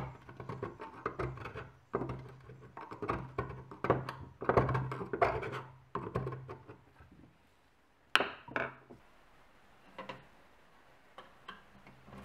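A metal rod scraping caked spent-carbide residue out of a carbide lantern's chamber: quick, irregular scraping and grating strokes for about seven seconds. About eight seconds in comes a sharp clink with a short ring, followed by a few light taps.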